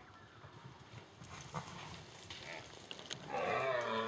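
Red deer stag roaring during the rut: a long, loud, wavering call that begins about three seconds in.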